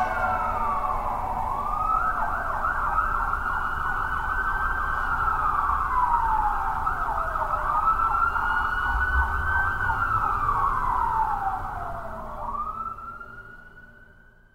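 Emergency vehicle siren wailing, slowly rising and falling in pitch about every six seconds over a low rumble, fading out near the end.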